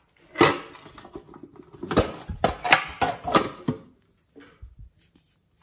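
Crinkling, rustling packaging as a clay piping bag is handled and taken out of its box, with sharp crackles, loudest about half a second in and again between two and four seconds; a few faint clicks follow.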